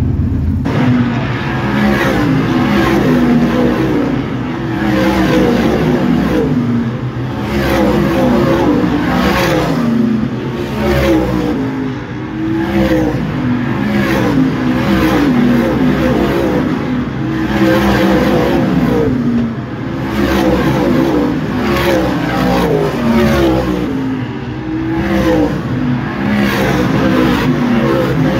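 A field of winged sprint cars' V8 engines racing flat out around a short paved oval. Engine notes rise and fall over and over as car after car passes close by.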